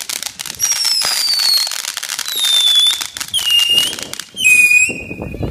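Ground fireworks crackling continuously as they spray sparks, with four whistles about a second apart, each gliding slightly down and each pitched lower than the one before.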